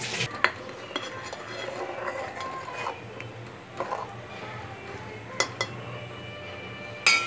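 Metal spoon stirring curry in a metal pot, scraping and clinking against the pot, with a few sharp knocks. The loudest knock comes near the end.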